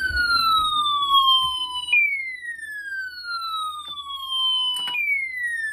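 Emergency alert siren tone of an Emergency Alert System warning: a whistle-like tone sweeping slowly downward in pitch, restarting abruptly at the top about every three seconds.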